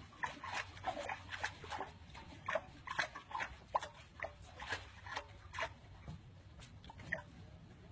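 Young raccoons squeaking and chittering, many short high calls in quick irregular succession.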